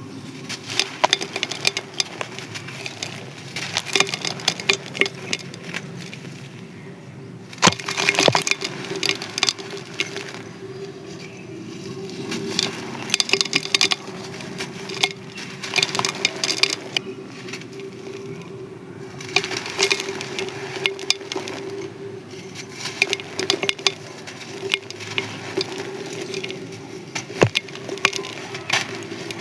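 Dry, brittle sand-cement chunks crumbling and being crushed: runs of sharp crisp crunches and clinks lasting a second or two, with short pauses between. A steady low hum sits underneath.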